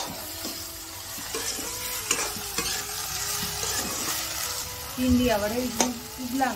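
Sliced okra sizzling in oil in a black iron wok, stirred with a metal spatula that scrapes and knocks against the pan now and then. A louder wavering pitched sound comes in about five seconds in and lasts over a second.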